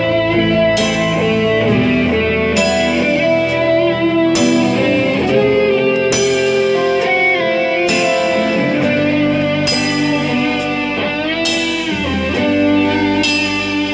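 Guitar-led band music, sustained electric guitar chords with a sharp accent about every two seconds.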